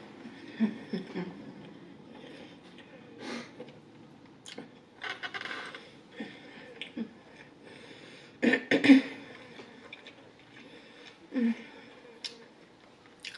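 Close-miked eating sounds: chewing and mouth noises, with a plastic fork now and then clicking and scraping in foam takeout containers. The sounds come in short, separate bursts, loudest about eight and a half seconds in.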